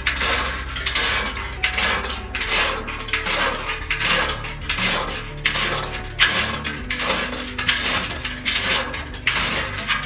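Background music with a steady beat of sharp percussive hits, about two to three a second.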